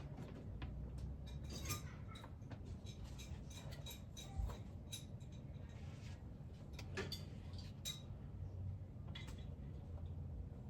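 Scattered light clinks and clicks of metal hand tools and parts being handled, over a low steady hum.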